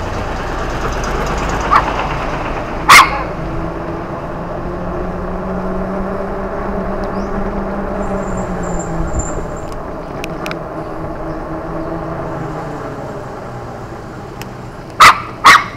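A Pomeranian barking sharply and loudly close by: one bark about three seconds in and two quick barks near the end, over the steady hum of a passing vehicle's engine.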